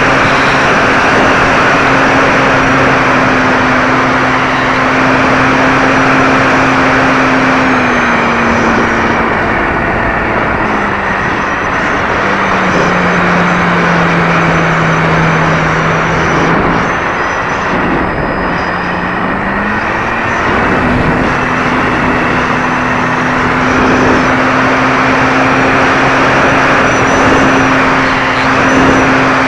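Onboard sound of an RC PT-19 model plane in flight: its motor runs steadily, drops to a lower pitch about eight seconds in and comes back up around twenty seconds, under a loud rush of wind over the onboard camera.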